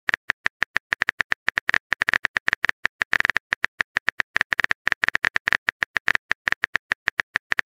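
Phone keyboard typing clicks: a fast, slightly uneven run of short ticks, about seven a second, as a text message is typed out.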